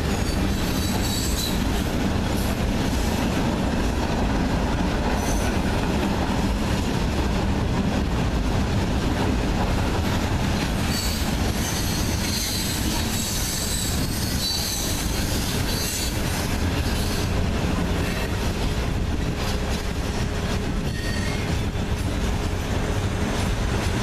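Loaded coal hopper cars of a freight train rolling steadily past on the rails, their wheels squealing in thin, high tones off and on, most around the middle.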